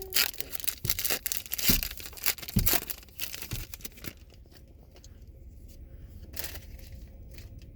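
Foil trading-card pack being torn open and its wrapper crinkled: a dense run of sharp crackles for the first few seconds, then only a few light rustles.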